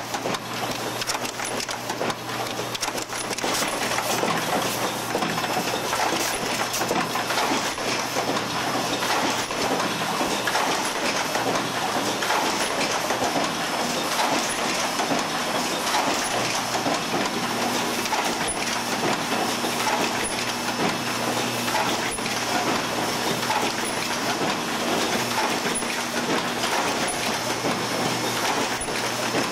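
Automated assembly machinery running: a continuous dense clatter of small parts and mechanisms over a steady electrical hum, with a faint high tick about once a second.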